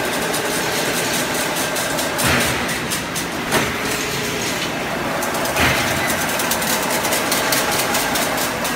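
Servo-driven chain link fence weaving machine running: a steady mechanical clatter of fine rapid clicks, with a heavier clunk about every three and a half seconds as it works through its weaving cycle.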